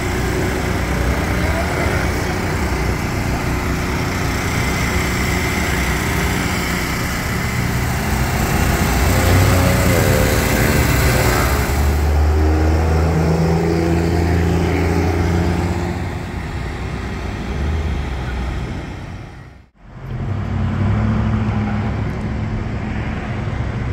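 Many small portable generators running together at once: a loud, steady, high-pitched drone. Near the end it breaks off abruptly and gives way to street traffic noise.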